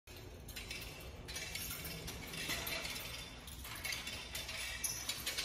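A pu dao (long-handled Chinese broadsword) being spun, its metal blade and fittings rattling and clinking in quick, irregular clicks.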